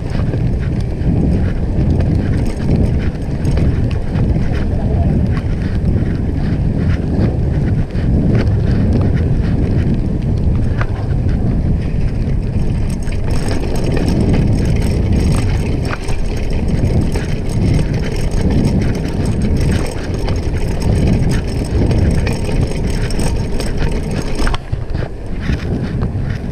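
Wind buffeting the microphone of a camera on a moving bicycle, over a steady rumble of tyres on wet paving. From about halfway the bike rattles over cobbles with a dense run of clicks and knocks, which thin out near the end on smoother road.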